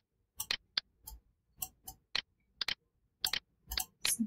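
Computer mouse button clicking, about a dozen short clicks at irregular intervals, some in quick pairs. The clicks are quiet.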